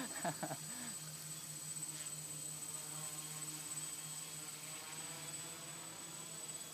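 Quadcopter hovering overhead, its four electric motors and propellers making a faint, steady buzz that fades slightly near the end.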